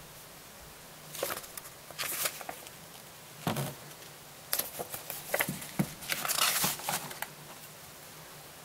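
Paper rustling and crinkling as the pages of a thin printed newsletter booklet are handled and turned by hand. It comes in several short bursts, with a longer stretch of rustling in the second half.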